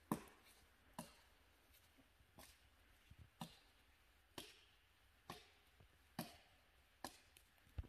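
Faint, distant chops of an axe into wood on a stump, about one stroke a second.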